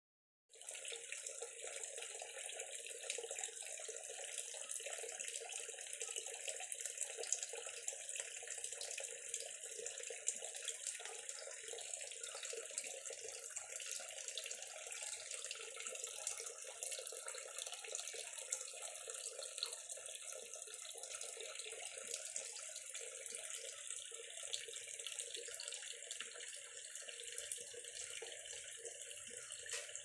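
Water pouring in thin streams from pot to pot in a tiered pot fountain, splashing steadily into the pools of water below.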